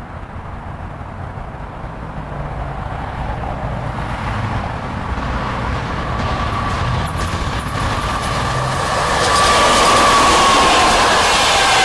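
EP2K DC passenger electric locomotive hauling a passenger train, approaching and passing close by. The rumble of wheels on rail grows steadily louder and peaks about nine seconds in as the locomotive goes by, with a whine that drops slightly in pitch as it passes.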